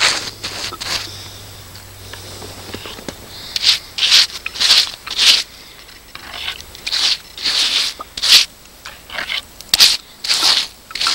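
A brush scrubbing oil into the rough, axe-hewn wood of a dugout canoe log, in a series of short scratchy strokes with a lull between about one and three seconds in.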